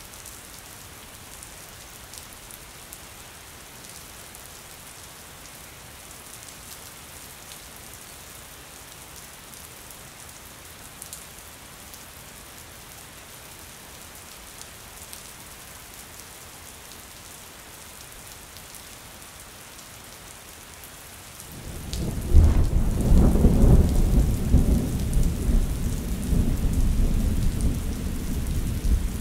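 Steady rain falling on a window pane, then, about three-quarters of the way in, a loud clap of thunder breaks in suddenly and rolls on as a deep rumble over the rain.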